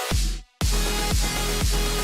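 Electronic dance music: after a short break to silence about half a second in, a heavy bass beat comes in, with a kick drum about twice a second.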